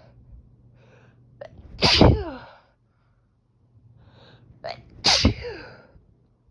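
Two loud sneezes about three seconds apart, part of a sneezing fit. Each starts with an in-drawn breath and a short catch, and ends in a voiced cry that falls in pitch.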